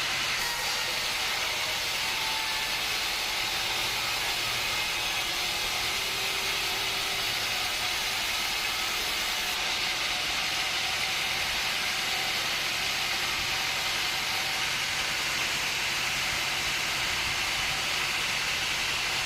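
Woodworking machinery running steadily, giving an even, unchanging hiss.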